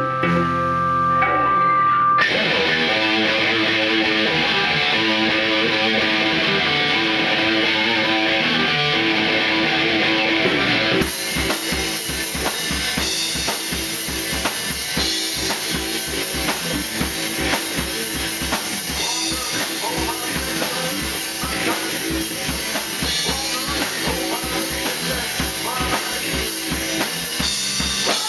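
Rock band playing live in a small room: electric guitars, bass, a Yamaha drum kit and a male singer. The first part is mostly held guitar chords; about eleven seconds in, the drums come in hard with a fast, steady kick-and-snare beat that carries on.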